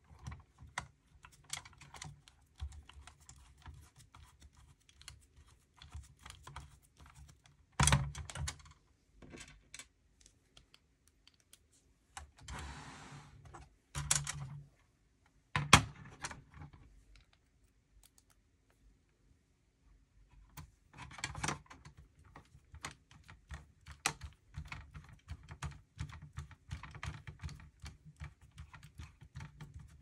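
A screwdriver, small screws and a metal drive caddy being handled, giving a stream of small light clicks and taps. There are a few sharper knocks in the middle, and a short scrape just before one of them.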